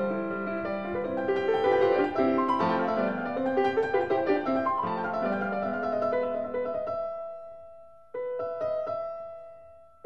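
Background piano music: a run of quick notes that dies away about seven seconds in, then a single chord struck about eight seconds in that rings and fades.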